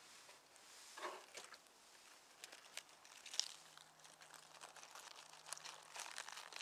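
A crisp lettuce leaf crinkling and crackling as it is pressed and smoothed onto a slice of bread, in a string of small, quiet rustles and ticks. A faint steady low hum sets in about halfway.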